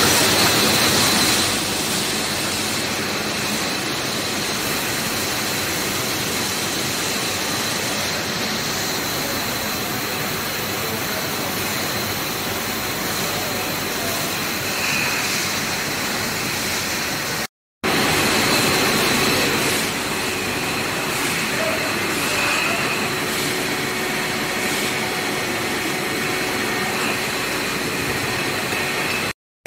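Steady mechanical noise of a running brewery bottling line: glass beer bottles carried on stainless-steel slat-chain conveyors. The sound drops out briefly twice.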